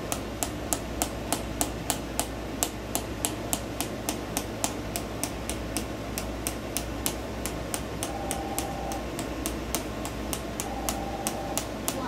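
Handheld chiropractic adjusting instrument tapping on the sacrum through clothing, giving an even run of sharp clicks at about three to four a second.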